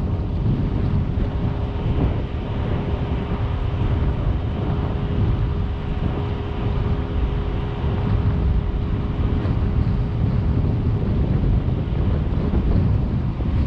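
Steady wind buffeting an outside microphone on a Jeep driving a rocky dirt trail, with the vehicle's running noise and a faint steady hum underneath.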